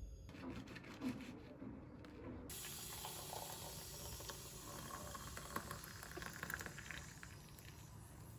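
Water poured from a kettle into a glass mug, a steady splashing fill that starts a couple of seconds in, after some faint handling sounds.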